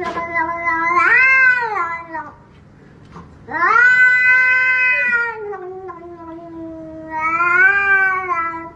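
Domestic cat yowling in long, drawn-out calls: one ending about two seconds in, then after a short pause a longer one of about five seconds that rises and falls in pitch and swells again near the end.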